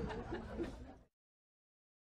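Low voices trailing off and fading out about halfway through, then dead silence as the sound cuts out completely.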